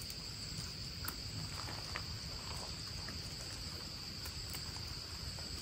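Insects chirring in one steady, unbroken high tone, with a few faint light ticks.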